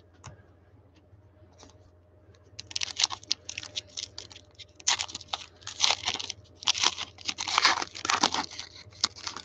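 Foil wrapper of a basketball trading-card pack being torn open and crinkled by hand: a run of crackling tears and crumples that starts about two and a half seconds in and goes on in uneven bursts.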